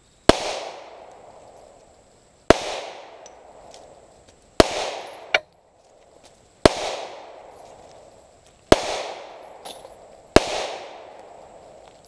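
Ruger P89DC 9 mm semi-automatic pistol fired six times, roughly two seconds apart, each shot followed by a long fading echo.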